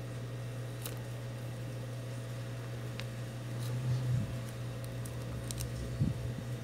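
Steady low hum of a hot air rework station heating a phone's display to soften the glue, with a few faint sharp ticks as a plastic card prises the panel apart.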